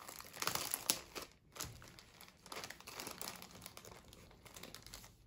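Clear plastic wrapping crinkling and rustling as hands slide a rolled canvas out of its sleeve; busiest in the first two seconds, then softer.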